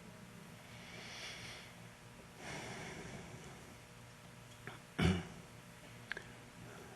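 Soft breaths near a microphone in a quiet room, with one short sharp sound about five seconds in and a couple of faint clicks.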